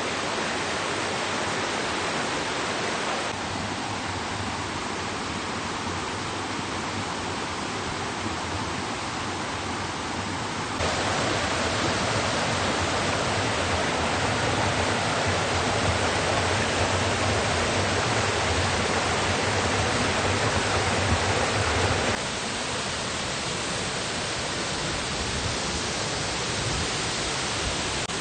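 Waterfall and rocky creek rushing in a steady wash of water noise, running fast after heavy rain. The level steps abruptly a few times and is loudest through the middle.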